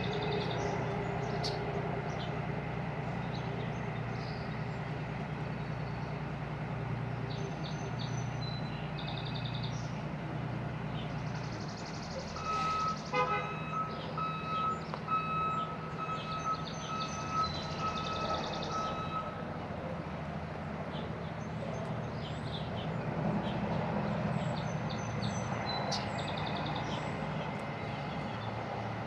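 A motor vehicle's engine running steadily. About halfway through, a reversing beeper sounds a run of short, evenly spaced beeps for several seconds.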